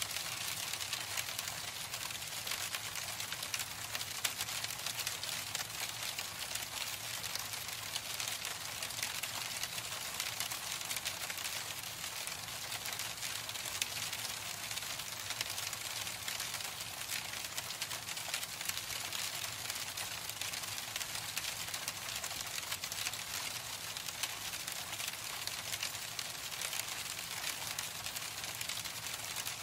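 Hail falling: a steady, dense stream of many small hits, even throughout.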